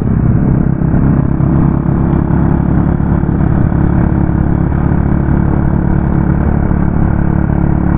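Motorcycle with an open exhaust pipe running loud and steady at cruising speed, heard from on the bike, with no revving or gear changes.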